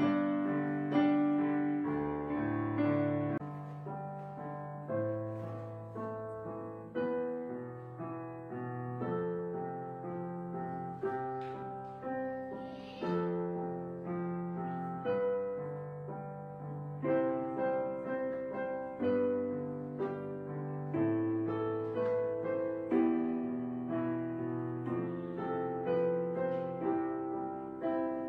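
Background piano music: notes and chords struck one after another, each fading before the next.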